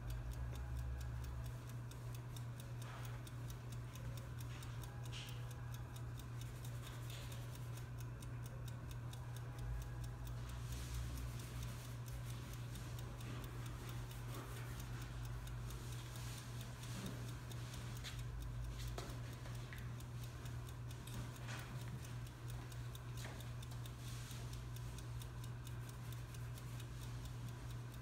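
Steady, rapid ticking over a constant low hum, with a few faint scattered taps.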